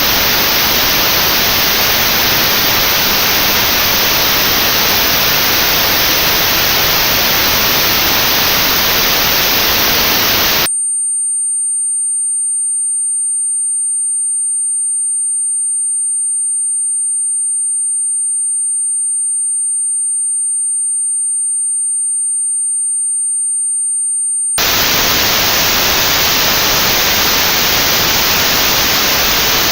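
Notched white noise for tinnitus sound therapy: steady hiss with a band of very high frequencies cut out. About eleven seconds in it stops abruptly and gives way to a lone steady, very high pure test tone at the notch's pitch. That tone lasts about fourteen seconds, then the notched hiss cuts back in.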